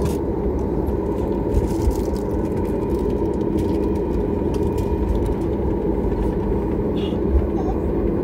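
Steady cabin noise of a jet airliner taxiing: a low, even engine rumble with a faint hum, and a few light knocks as the wheels roll over the taxiway.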